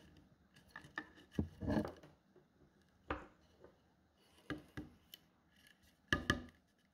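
Rattan strands rubbing, scraping and clicking against a bamboo tube as the weave is worked and the tube is turned by hand, in short irregular bursts with two sharper knocks near the end.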